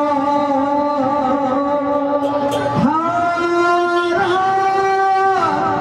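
Male lead singer of a devotional kirtan holding long drawn-out sung notes, the pitch stepping up about three seconds in and again a second later.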